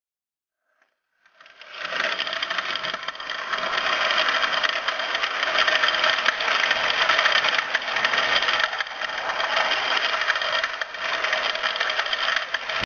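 Hornby Inter City 125 model train with Mark 3 coaches running along the layout track: a steady rattle of wheels on the rails with a faint hum in it. It starts about a second and a half in.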